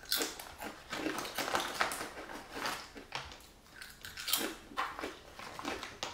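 Close-up crunching and chewing of thin tomato-flavoured lace potato chips, an irregular run of crisp crunches.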